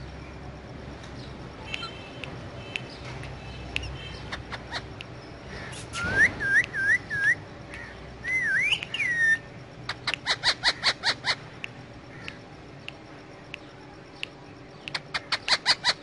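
Indian ringneck parakeet whistling and chirping. A run of short rising whistles comes about six seconds in, then a wavering whistle. Rapid strings of sharp chirps follow, about ten seconds in and again near the end.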